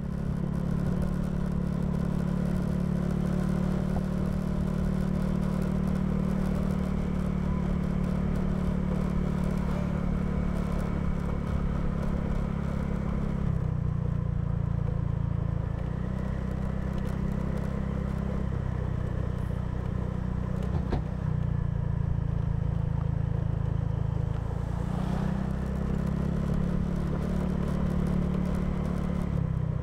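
Riding a Honda scooter: wind rumbling on the microphone over the scooter's engine running steadily. The low rumble eases off about halfway through and again a little later, then comes back.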